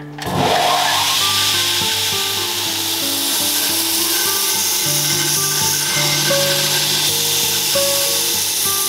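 Belt grinder grinding the steel of an old file held against its abrasive belt: a steady rasping hiss that starts just after the beginning and holds, with background music underneath.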